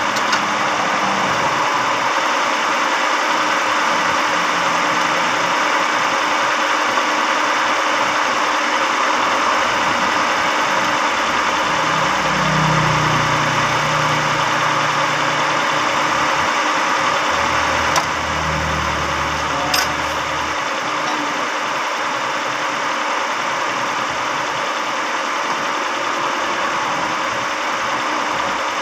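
Carbureted car engine idling steadily with the hood open while the idle is set at the carburetor. It was just cleaned, with a new spark plug and fuel filter, to cure a misfire and a missing idle. A deeper low hum comes in twice around the middle, and there are two short clicks.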